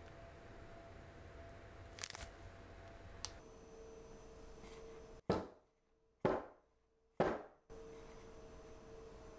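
A metal donut pan full of batter rapped down on the table three times, about a second apart, each a sharp knock with a short ring: tapping the pan to knock the air bubbles out of the batter before baking.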